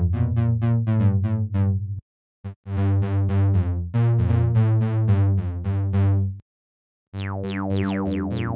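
Sampled synth bass patches from the old Dream Station DXi plugin, played as runs of short repeated notes about four a second, in three phrases with brief gaps. The last phrase is a sawtooth bass, with a bright falling sweep on each note.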